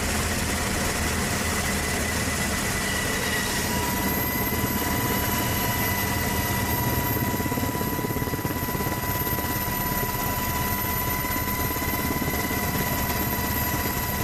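Aircraft turbine engines running on an aircraft carrier's flight deck: a loud, steady rumble with high engine whines that set in about four seconds in.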